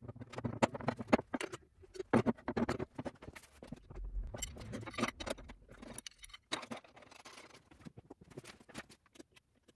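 Irregular clinks, clacks and knocks as the metal fittings of a Bosch PBD 40 drill press, its parallel guide and clamp, are handled and fitted onto the base plate during assembly.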